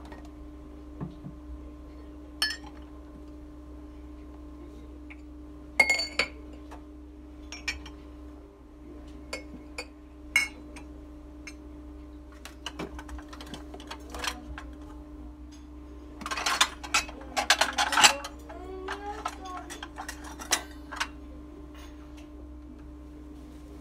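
Ceramic bowls, mugs and drinking glasses clinking and knocking as they are set on a white wire-mesh kitchen rack: scattered single clinks, then a busier clatter about two-thirds of the way through. A steady low hum runs underneath.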